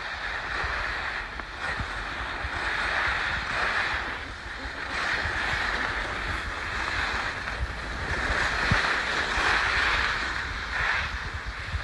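Skis hissing and scraping over packed snow, swelling and fading with each turn, with wind rumbling on the microphone.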